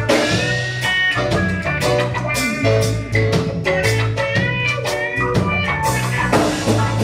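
Reggae band playing an instrumental passage between sung lines: a steady drum beat, a bass line and a guitar.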